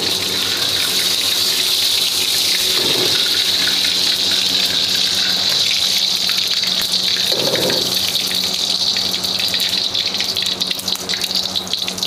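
Hot cooking oil sizzling in a wok over a gas flame: a steady hiss that starts suddenly as the oil goes into the hot pan, with crackling spits growing toward the end.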